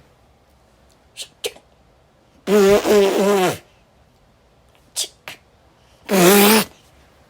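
A child's voice making two wordless vocal sound effects, the first about two and a half seconds in and lasting about a second, the second shorter near the end, with a few short clicks between them.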